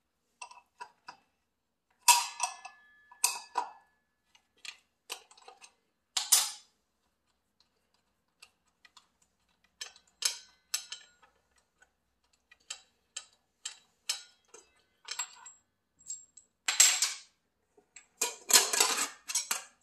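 Pliers and loose metal parts clinking and clanking against a Makita sliding miter saw's blade, arbor bolt and guard as the blade is worked loose by hand without its proper wrench. The clicks are irregular, with a few louder clanks and a denser burst of clatter near the end.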